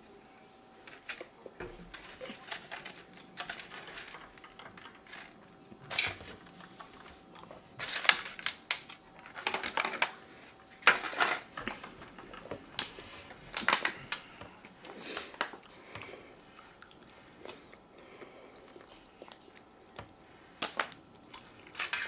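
Eating sounds: chewing and mouth noises, with irregular clicks and scrapes of plastic forks against aluminium foil takeaway trays. The sounds come in scattered short bursts, busiest from about six to fifteen seconds in.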